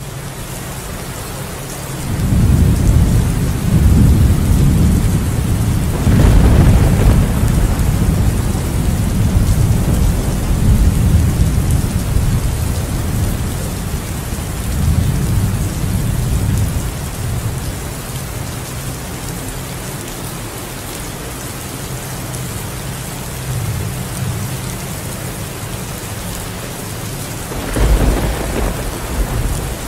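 Steady heavy rain under a thunderstorm. Rolling thunder rumbles in from about two seconds in, swells again around six seconds and fades out by about eighteen seconds. A shorter, sharper peal comes near the end.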